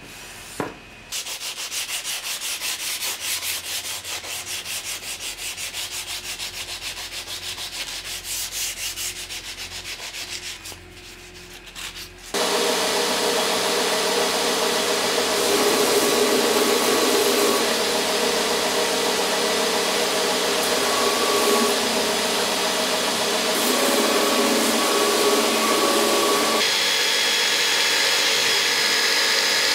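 A steel cutlass blade is rubbed by hand along a flat board in quick, even back-and-forth strokes. About twelve seconds in, this gives way to a louder belt grinder running steadily with a whine as the blade is ground against the belt.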